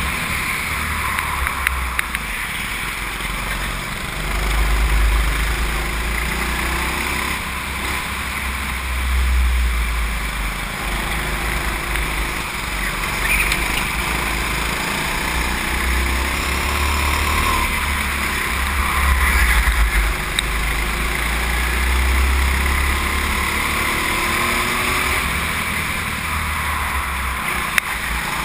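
Go-kart engine running hard, its pitch rising and falling through the bends, heard from a camera mounted on the kart, with a heavy low rumble that swells and fades.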